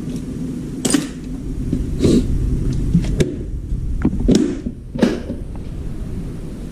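Tools and objects being handled: a series of sharp clicks and knocks, about six spread over a few seconds, over a steady low hum.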